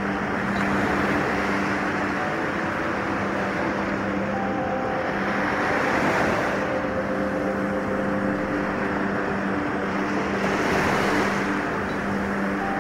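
Small ocean waves breaking and washing up over a sandy beach, the surf swelling about every five seconds, under soft sustained ambient music chords.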